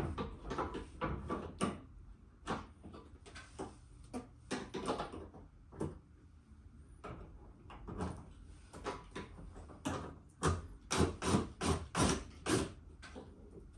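Irregular clicks and knocks of plastic bumper parts being handled while a screw is fitted by hand, with a run of sharper knocks about ten seconds in.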